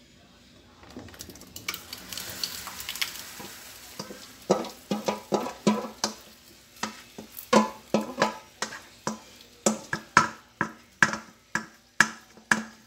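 Thick bread-pudding batter sliding out of a bowl into a pot. After that comes a wooden spoon scraping the batter out and knocking against the bowl, about two or three sharp knocks a second, each with a short ring.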